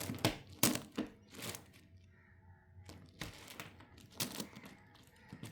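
Plastic 10x10 Rubik's cube being turned by hand: irregular clicks and clacks of slices moving, with a brief pause about two seconds in.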